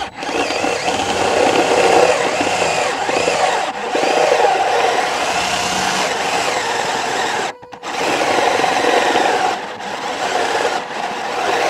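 Craftsman V20 cordless drill driving a step drill bit (unibit) through the car's sheet-metal rear panel, widening a pilot hole. It runs steadily, stops briefly about two-thirds of the way through, then runs again.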